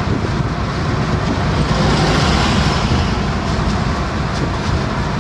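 Steady road, wind and engine noise inside the cabin of a Tata Nexon at highway speed in sixth gear, growing a little louder about two seconds in as it passes a truck.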